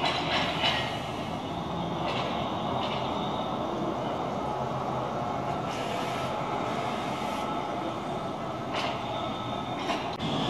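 Articulated electric trolleybus driving slowly past: a steady running noise of motor and tyres with street traffic, no engine. A short hiss of air comes in the middle.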